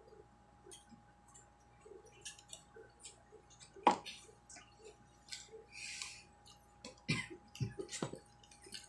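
Eating and food-handling sounds: scattered small clicks of chewing and handling food, with a sharp knock about four seconds in and a few more knocks near the end.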